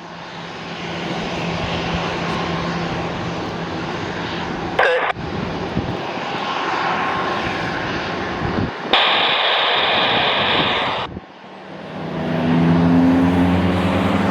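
Bombardier Global Express XRS business jet's twin turbofan engines running, a steady rushing jet noise. About nine seconds in, a louder hiss starts and cuts off abruptly after two seconds. After that a lower hum with steady tones builds up.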